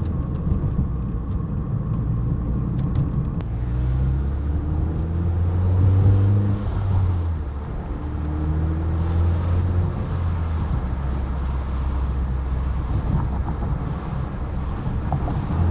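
Mazda MX-5's four-cylinder engine running through a BBR aftermarket rear silencer: a steady low exhaust drone whose pitch rises and falls several times as the revs change.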